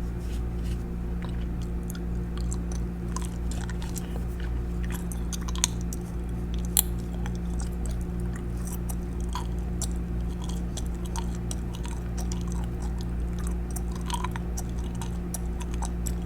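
Gum chewing and smacking close to the microphone: scattered wet clicks, with two sharper clicks about six and seven seconds in, over a steady low hum.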